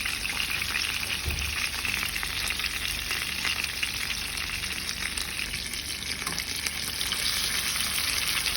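Fish frying in hot oil: a steady, dense crackle and sizzle.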